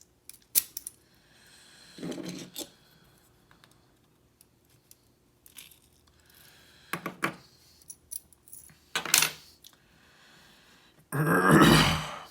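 Small metal clicks and clinks of a lock cylinder's pins and springs being handled and tipped into a pinning tray while the cylinder is taken apart. The clicks come a few at a time with gaps between them, and a louder, longer clatter comes near the end.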